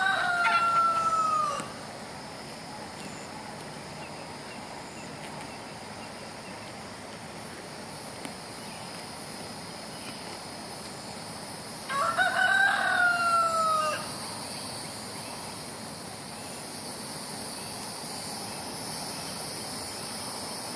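A rooster crowing twice: one crow ends about a second and a half in, and another comes about twelve seconds in. Each lasts about two seconds and ends in a falling tail. A steady high-pitched chirring of insects runs underneath.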